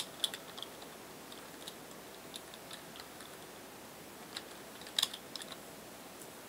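Computer keyboard keys tapped sparsely, a single click here and there, over a faint steady hiss. A louder pair of clicks comes about five seconds in.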